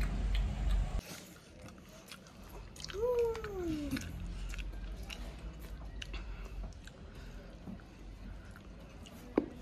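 A young child chewing a mouthful of rice close to the microphone, with many small wet mouth clicks. A short hummed voice sound about three seconds in, and a sharp click near the end.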